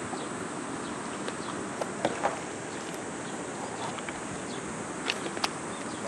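Steady outdoor noise on a pebbly riverbank, broken by a few sharp clicks of river stones knocking underfoot, twice in quick pairs.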